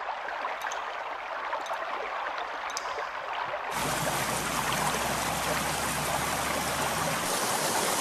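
Meltwater trickling, with a few separate drops falling. From about four seconds in comes the fuller, steady rush of a stream running past ice.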